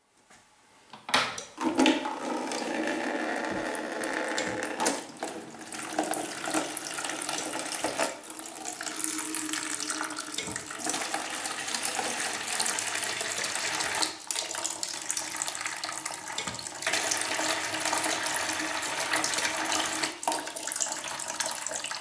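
A stream of water from a hose splashes into a plastic bucket that already holds water. It starts about a second and a half in and runs steadily after that. Sharp clicks come every few seconds as a Miele aquastop solenoid valve and its relay are switched on and off by a microcontroller.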